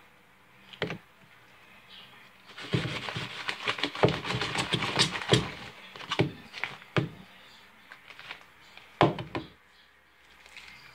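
Homemade glue-and-shaving-cream slime being mixed and squished by hand: a run of irregular sticky squelches and smacks from about three seconds in, thinning out, with one louder smack near the end.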